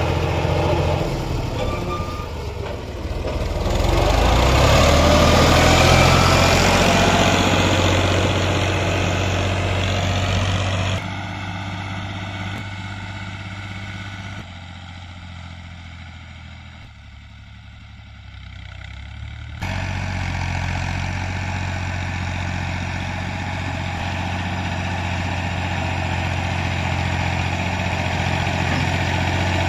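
Fiat 480 tractor's three-cylinder diesel engine running under load while its front blade pushes soil. It is loudest a few seconds in, then fades as the tractor works farther off. Near two-thirds of the way through it comes back suddenly, steady and louder.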